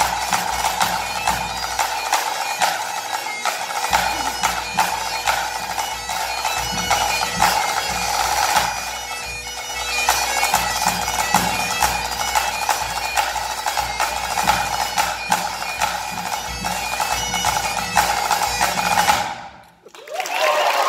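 Great Highland bagpipe playing a tune over its steady drone, with a pipe-band snare drum and bass drum. The music stops abruptly near the end, and applause begins.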